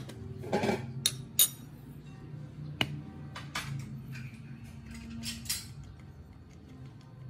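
A metal spoon clinking against a small ceramic bowl, then a few sharp taps and clicks from a plastic spice shaker being handled and shaken over the bowl.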